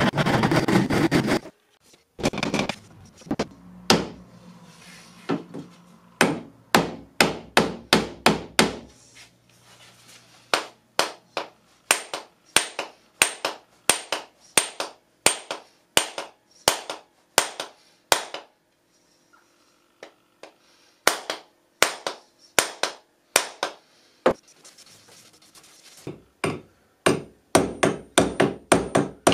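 A steel hammer head being fixed on its new wooden handle: long runs of sharp hammer blows, about two a second, with a faint metallic ring after many of them, broken by two pauses. Near the end the blows come quicker as a second hammer strikes the top of the head, driving in the wedge. A short rasping noise opens.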